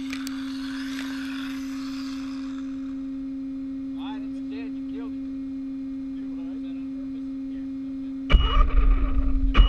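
Electric RC car sitting still with a steady electronic whine from its motor system, a few short high chirping whines around the middle, then about eight seconds in the car takes off suddenly with a loud rumble of motor and tyres.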